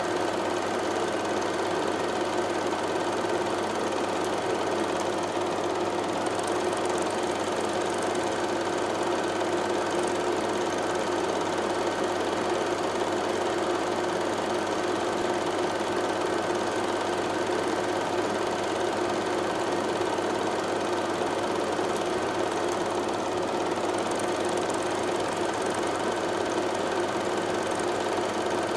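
Steady mechanical running noise with constant hum tones, unchanging throughout.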